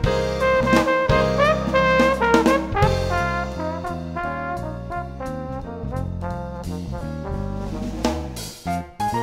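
Background music: a brass-led tune over bass and drums, with some notes sliding in pitch.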